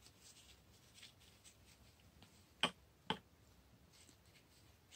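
Two light, sharp clicks about half a second apart, a little past halfway through, from painting tools being handled. Around them, faint soft ticks over quiet room tone.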